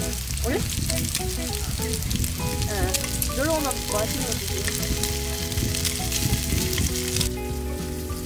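Pork belly sizzling on a hot grill pan, with metal tongs clicking and scraping as the slices are turned. The sizzle cuts off suddenly about seven seconds in, leaving soft background music with held notes.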